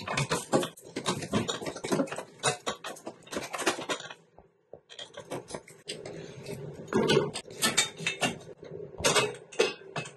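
Irregular clicking and clattering of hands and tools on plastic and metal parts in an engine bay, as a wiring connector is unclipped and a bracket is worked loose. It pauses briefly about four seconds in, then resumes with a few louder knocks.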